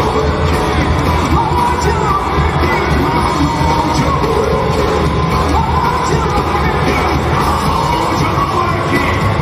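A live rock'n'roll band playing, with a singer, drums, electric guitar and double bass, and crowd noise underneath.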